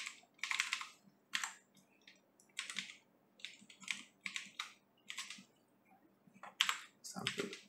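Computer keyboard being typed on: single keystroke clicks at an uneven pace, pausing for about a second near the end before a few more keys.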